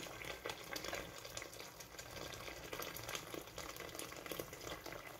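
Water pouring in a steady stream from an enamel kettle into a large aluminium pot of chicken and sauce, splashing as the pot fills.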